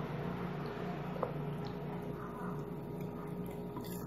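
A person chewing a mouthful of food, with a few light clicks, over a steady low hum.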